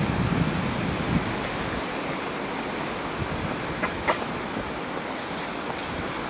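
Steady rushing noise of wind with the river's running water, buffeting lower in the first second or so, with a couple of faint clicks about four seconds in.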